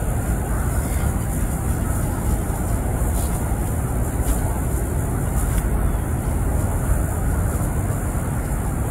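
A steady low rumble of outdoor noise, with a few faint squelches as feet in wet socks step through soft mud.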